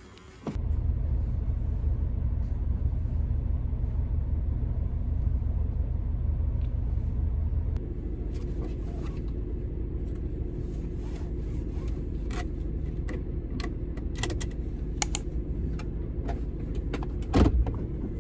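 Steady low rumble of a car on the move. It eases a little partway through, and scattered clicks and knocks come in the second half.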